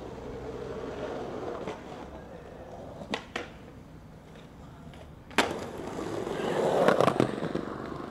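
Skateboard wheels rolling on pavement, then two sharp clicks just after three seconds in as the board is popped up onto a metal handrail, a quieter stretch while it slides along the rail, and a sharp smack of the landing about five and a half seconds in. The wheels then roll away louder, with more clicks.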